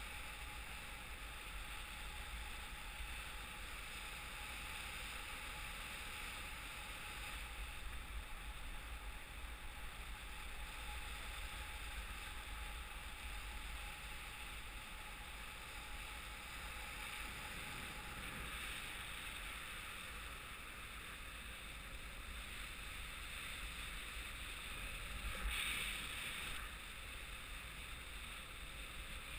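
Steady rush of airflow past a paraglider in flight, heard as wind noise on the camera's microphone with a low buffeting rumble, and a brief louder gust near the end.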